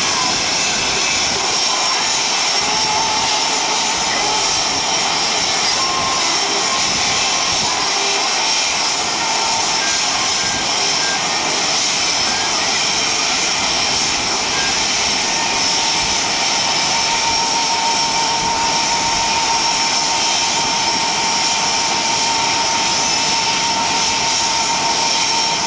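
Several F/A-18 Hornet jet engines (GE F404 turbofans) running at idle on the ramp: a loud, steady jet whine and rush with no change in pitch.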